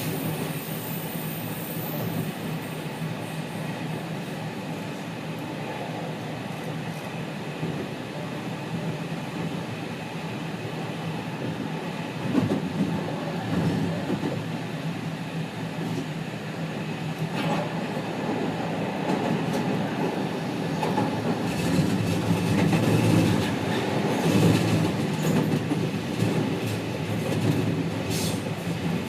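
Running sound inside the motor car of a JR West 207 series 1000-subseries electric train between stations: steady rumble of the car with wheels clacking over rail joints and thin steady tones from the traction equipment, growing louder and rougher from about halfway through.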